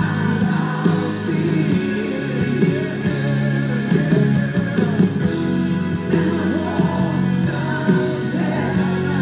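Background music: a song with singing over guitar, running steadily.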